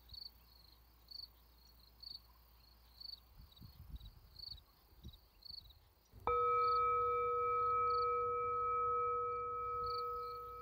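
Crickets chirp faintly about once a second. About six seconds in, a single struck bell-like tone rings out, clear and sustained, slowly fading.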